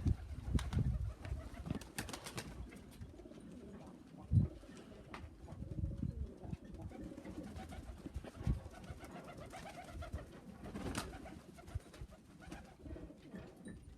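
Domestic pigeons cooing. A few short, dull thumps stand out, the loudest about four seconds in.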